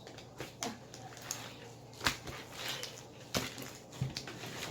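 A few scattered sharp clicks and knocks, about four in all, from slime-making supplies being handled and set down.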